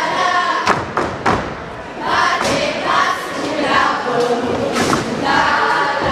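A group of girls singing together in short phrases during a folk dance, with thuds of their feet stamping on the stage floor.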